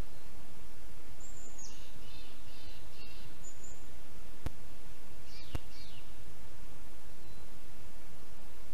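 Steady outdoor background hiss, with a small songbird calling high twice: once about a second in and again around five seconds in. Two sharp clicks fall between the calls.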